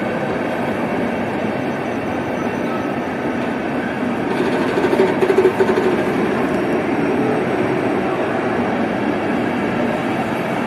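Czech Railways passenger coaches rolling past along the platform track, their wheels making a steady rumble, with a louder clattering stretch about four to six seconds in.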